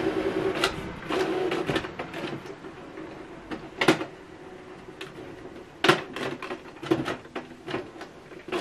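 Canon PIXMA TS5051 inkjet printer going through its start-up cycle after being switched on: a motor whirs in short runs during the first couple of seconds, then a series of sharp clicks and knocks from the mechanism, the loudest about four and six seconds in.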